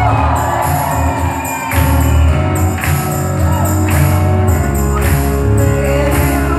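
Live pop band playing with a woman singing lead, strong bass and drums with cymbal strokes, heard from inside a concert crowd.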